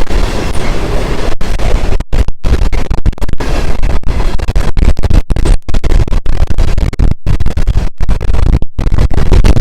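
Empty grain hopper cars of a freight train rolling past close by: a loud, continuous rumble and rattle of steel wheels on rail. The sound cuts out for split seconds many times.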